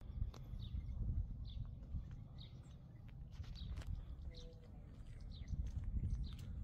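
Wind buffeting a phone's microphone as a low, uneven rumble, with a small bird chirping over it in short high notes about once a second.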